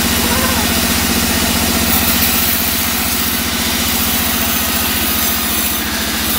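Band saw mill cutting into an old teak log: the blade's hiss through the wood rises about two seconds in, over the steady, evenly pulsing run of the saw's machinery.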